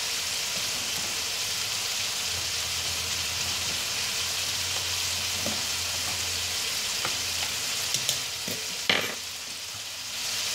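Chicken frying in a pan: a steady sizzle, with a few sharp clicks near the end.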